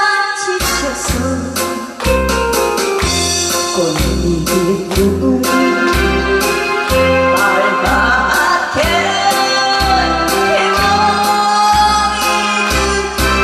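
A woman singing with vibrato over amplified backing music with a steady beat of bass and drum hits.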